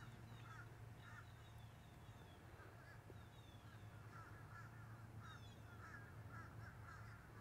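Near silence, with faint, repeated bird calls and short chirps over a low steady hum.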